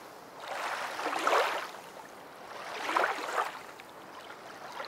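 Rushing water sound effect, swelling and fading in two large surges, loudest about a second in and again about three seconds in.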